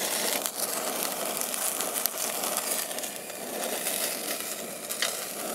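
Chunks of beef searing in hot oil in a cast-iron Dutch oven, sizzling steadily. The sizzle starts suddenly right at the beginning.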